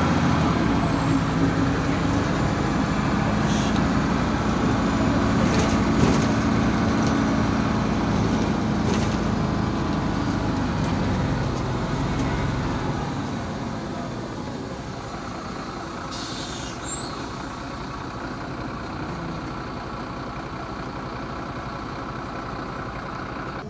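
Inside a MAZ-203 city bus: the diesel engine and road noise run steadily, then quieten from about halfway through as the bus slows. A short hiss of air comes about two-thirds of the way in.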